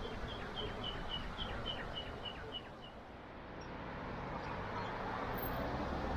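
A small bird calling a quick run of about ten short, high chirps, roughly four a second, for the first three seconds. A vehicle's low rumble then grows as it approaches near the end.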